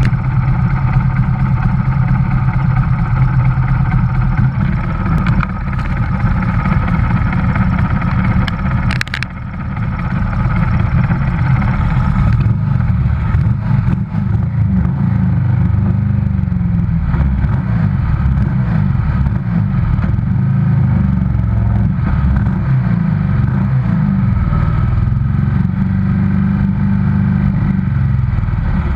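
Pre-1982 racing motorcycle engine running at low revs, heard close up from on the bike. About nine seconds in the sound drops briefly, with a sharp click, then picks up again.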